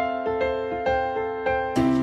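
Background music: a melody of single piano-like keyboard notes over held chords. Near the end, drums and a low bass note come in.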